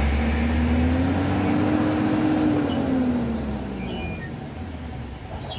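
Isuzu Giga truck's diesel engine running hard and revving, its pitch rising for about two seconds, then falling away. A short sharp click comes near the end.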